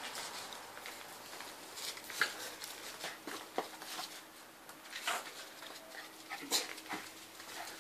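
Small dogs playing together, making a few short, sharp dog sounds at irregular intervals, the clearest about five seconds in and again a second and a half later.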